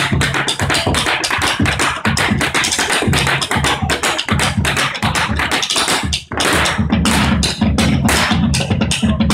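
Gaucho boleadeiras' balls striking the wooden stage floor in quick rhythmic knocks as they are swung, over drum-led percussion music. The knocking breaks off briefly about six seconds in.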